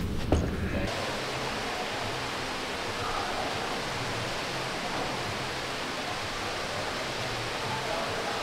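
Steady, even rushing hiss of outdoor ambience that starts abruptly about a second in, just after a click from a window shutter being opened.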